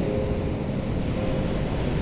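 Ocean waves: a steady rush of surf, heavy in the low end. A faint, slow melody of held notes changes pitch now and then over it.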